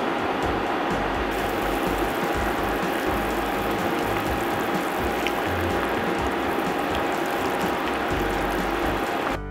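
Soup boiling hard in a cast-iron skillet, a dense, steady crackling of bubbles with a thin steady tone under it. It stops suddenly at the very end.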